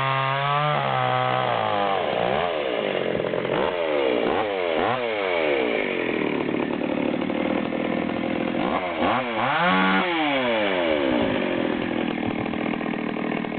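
Stihl 020AV Super two-stroke chainsaw running: it drops off high revs about a second in, is revved up and down several times in quick blips, and revs up again about ten seconds in before settling to steadier running.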